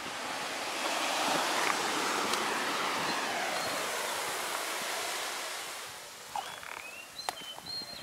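Ocean surf washing up the beach, a broad hiss that swells over the first second and fades away about six seconds in. Short high chirps and a few sharp clicks follow near the end.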